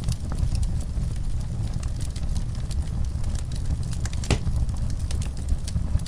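Wood fire crackling, with scattered small pops and one sharper pop about four seconds in, over a steady low rumble.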